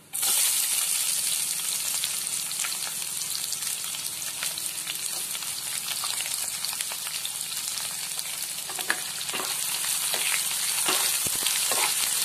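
Sliced onions dropped into hot mustard oil with whole spices, setting off a sudden loud sizzle with steady crackling. Near the end a flat spatula stirs them, scraping against the pan.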